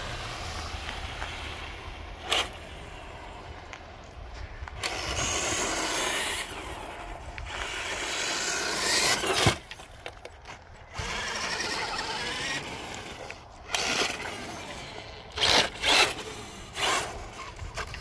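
ECX AMP MT 1/10-scale 2WD RC truck driving, its electric motor whining up and down in pitch as it speeds up and slows, tyres scrubbing on concrete and snow, with several sudden loud bursts near the end. A clicking comes from the drivetrain: the sign of a ruined transmission case and gear set, not the spur gear first suspected.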